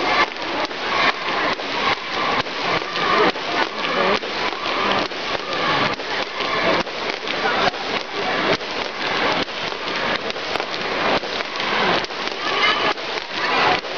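Jump rope slapping the floor in a fast, even rhythm, about three slaps a second, as a team jumps continuously, over a din of voices.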